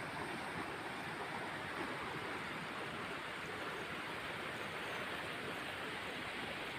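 Shallow jungle river running over rocks: a steady, even rush of flowing water.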